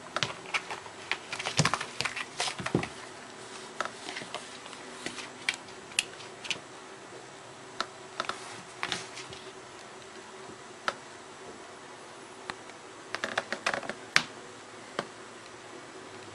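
Irregular light clicks and taps, coming in clusters with a lull in the middle, from a cat's claws and a slipper knocking and scuffing against the floor as the cat grapples with and kicks the slipper. A faint steady hum runs underneath.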